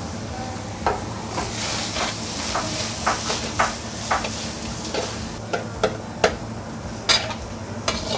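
Minced chicken sizzling in a hot wok while a metal wok ladle stirs and scrapes it. The ladle knocks against the wok in irregular sharp clicks.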